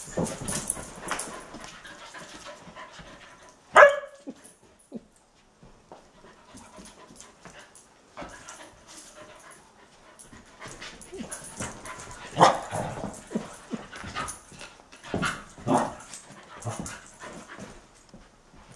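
Two dogs, a collie and a Belgian Tervuren puppy, at play: a few short barks and yips, the loudest about four seconds in and several more in the last third, over quieter scuffling and panting.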